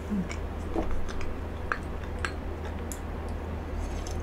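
A few faint clicks and ticks from small mouth and tableware handling sounds, over a steady low hum. Near the end comes a sip of coffee from a ceramic mug.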